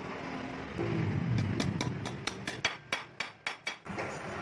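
Rapid hammer taps on the steel axe head: about a dozen sharp metallic knocks at roughly five a second.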